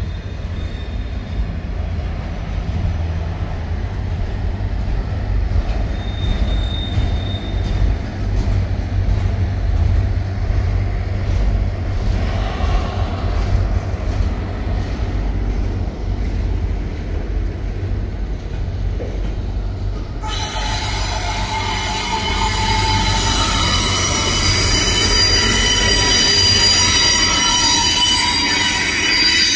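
Freight train rolling by on the rails with a steady low rumble. About twenty seconds in, several high, sustained squeals of steel wheels on rail join it.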